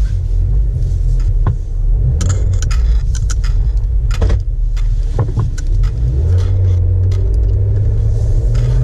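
Jeep Wrangler JK driving, heard from inside: a steady low engine and road rumble, with a scatter of sharp clicks and jangling rattles in the middle of the stretch.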